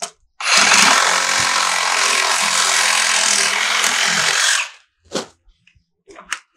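Power saw cutting through 2-inch PVC pipe: a steady run of about four seconds that starts and stops abruptly, followed by a couple of short knocks near the end.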